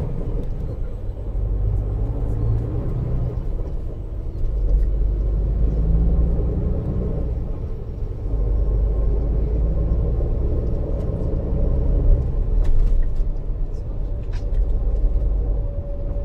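Neoplan Tourliner coach heard from inside the passenger cabin while under way: a steady low engine and road rumble, with a few light rattles in the second half.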